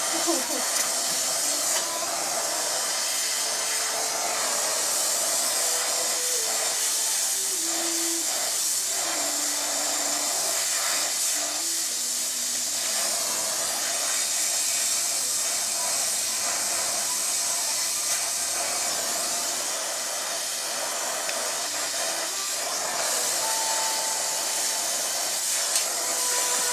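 Oxy-fuel brazing torch flame hissing steadily while it heats a steel bicycle frame joint for brazing.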